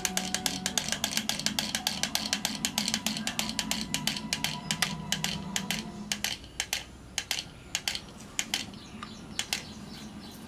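Plastic wind-up walking toy mouse clicking as it steps across a hard floor, a rapid clatter of several clicks a second over a low hum. About six seconds in the hum stops and the clicks thin out and turn irregular, as the spring runs down.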